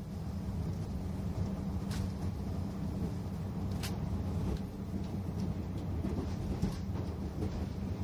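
Cabin of a KiHa 185 series diesel railcar under way: a steady low drone of the diesel engine and the running rumble of the train, with two sharp clicks about two and four seconds in.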